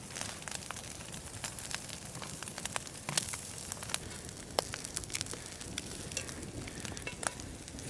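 Food frying in a cast iron skillet over a campfire: a steady sizzle with frequent sharp pops and crackles.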